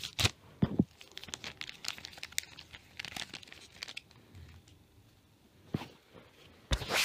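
Foil trading-card booster pack crinkling and tearing as it is opened, with scattered rustles and clicks of cards being handled; the sharpest crackles come at the start and just before the end, with a quieter stretch between.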